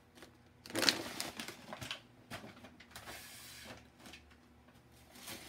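Plastic bags rustling and crinkling as they are handled, loudest about a second in.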